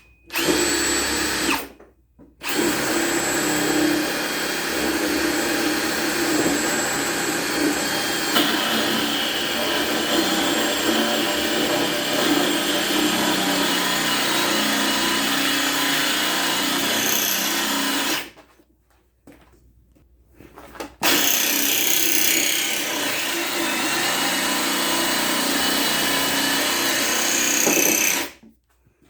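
Ryobi 18V ONE+ HP brushless hammer drill on a 4 Ah battery in speed 2, boring with a 1-1/4 inch spade bit, a very hard load for a drill. It runs in three goes: a short burst, a long run of about sixteen seconds, then a stop and about seven seconds more.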